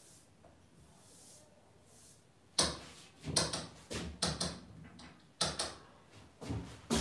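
Handling noise: quiet at first, then from about two and a half seconds in an irregular run of short knocks and rubs, some coming in quick pairs.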